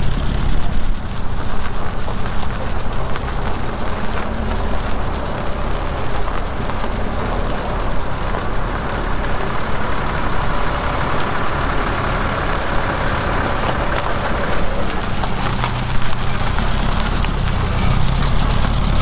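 Volkswagen-powered Bugatti car driving on the road: steady engine and road rumble, with a higher whine and hiss that builds through the middle and fades away.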